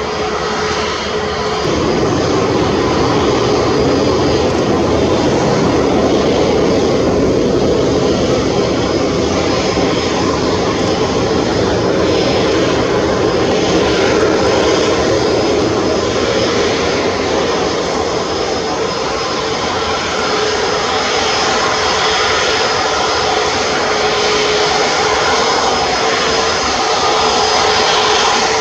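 Twin turbofan engines of an Airbus A321neo running at low taxi power as the airliner rolls slowly, a steady rushing jet drone with a thin, even whine.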